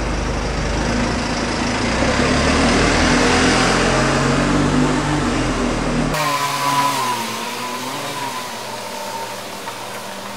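Bus engine accelerating, its low note rising in steps through the gears over road noise. About six seconds in the sound cuts off abruptly to a quieter passage with a wavering whine.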